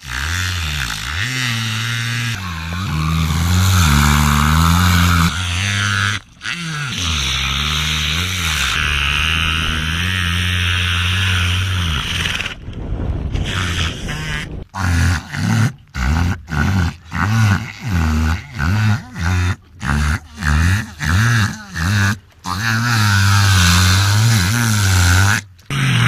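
Orca (killer whale) imitating a boat motor: low, engine-like droning calls whose pitch wavers up and down. Midway they break into a string of short pulses, roughly two a second, before the steady drone comes back.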